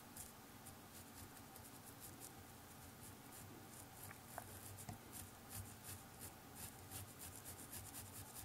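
Fine watercolour brush dabbing and stroking on textured watercolour paper: faint, soft scratchy ticks that come more often in the second half, with one faint short squeak about four seconds in.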